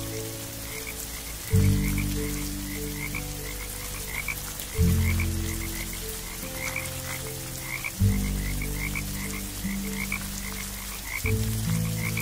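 Frog chorus: quick high chirps, about three a second, over deep calls that start suddenly about every three seconds and fade away, with a faint steady hiss behind.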